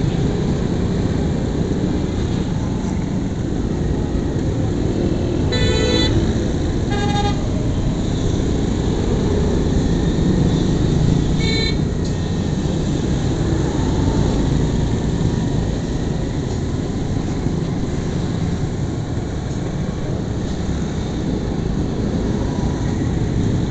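Street traffic heard from a moving motorcycle: a steady low engine and road rumble. Vehicle horns sound over it, a quick run of short beeps about five and a half seconds in and shorter toots about seven and eleven and a half seconds in.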